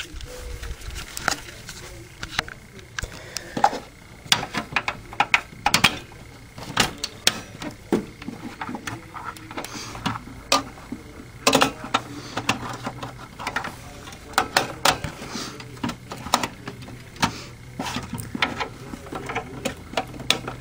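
Irregular plastic clicks, knocks and rattles as parts of an opened Xbox 360 console are handled and snapped back into place, with a faint low hum in the second half.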